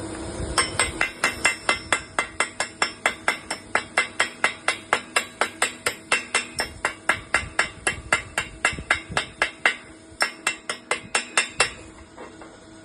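A hammer striking a steel workpiece in a steady, fast series of sharp metallic blows, about four a second, which stop about a second before the end. A steady machine hum runs underneath.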